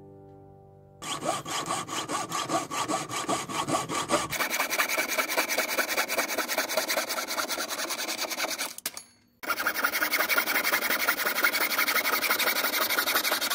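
Jeweler's saw cutting through a silver tube held on a wooden bench pin: fast, even back-and-forth strokes of the fine blade, starting about a second in, stopping briefly about nine seconds in, then going on.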